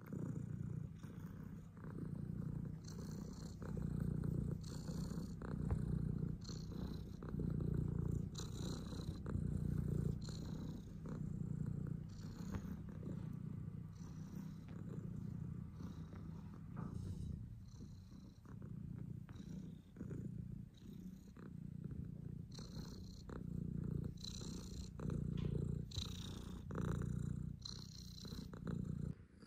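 Long-haired tuxedo cat purring close up, the purr swelling and fading about every two seconds. Fingers scratch through its fur with a soft rustle in short spurts.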